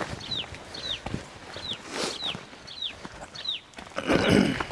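A bird chirping over and over: short, high chirps that fall in pitch, about two a second. Near the end comes a louder, rougher sound.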